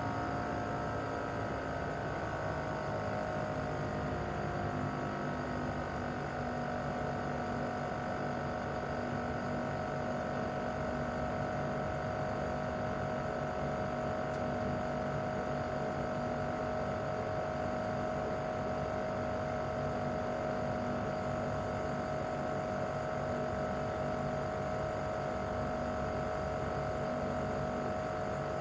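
Mitsubishi Heavy Industries SRC2221T air conditioner outdoor unit running in cooling mode: the inverter-driven single rotary compressor and the fan make a steady hum with several held tones. The tones drift slightly lower over the first few seconds as the compressor speed settles, then hold steady.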